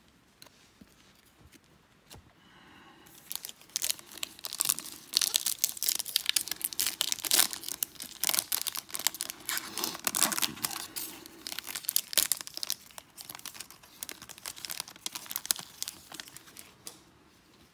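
Silver foil wrapper of a Topps baseball card pack being torn open and crinkled by hand. The crackling starts about three seconds in, is densest in the middle, and thins out near the end.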